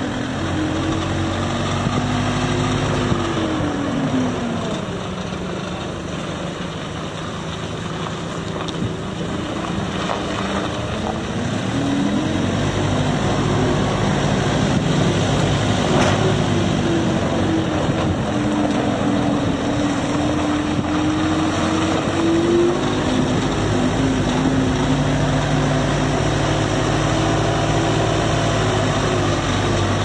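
The 82 hp FPT diesel engine of a Case SR220 skid steer loader running under load as the machine drives and turns. Its pitch drops about four seconds in, climbs again around eleven seconds and dips once more near twenty-three seconds.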